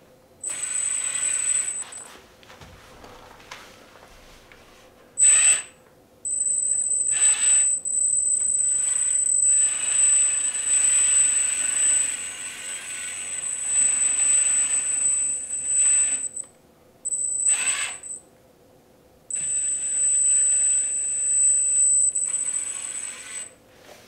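Electric hydraulic pump of a 1:16 Huina 336 RC excavator whining as the boom, arm and bucket are moved, starting and stopping with the control sticks. There is a short spell near the start, a brief burst about five seconds in, a long run of about ten seconds, and two more spells near the end.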